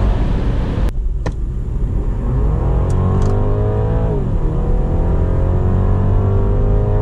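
BMW 330e's 2.0-litre turbocharged four-cylinder petrol engine under full-throttle acceleration in Sport mode. A steady high-speed drone cuts off suddenly about a second in. Then the engine note rises, drops at a gearshift about four seconds in, and rises again.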